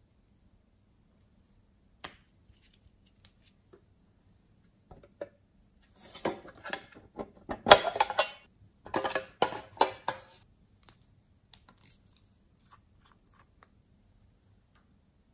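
A few small clicks and ticks, then about four seconds of metallic clattering and scraping as a Hello Kitty-shaped metal tin and its lid are handled, loudest in the middle, then a few faint ticks.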